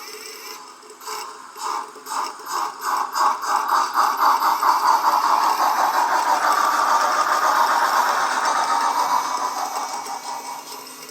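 Lenz O gauge DB Class 86 model locomotive's sound decoder playing steam exhaust chuffs through its small speaker. The chuffs quicken as the engine pulls away until they run together into a steady rush, which fades over the last few seconds.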